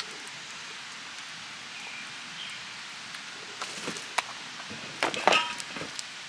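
Steady rushing of a river, with a few scattered clicks and a short clatter of knocks about five seconds in.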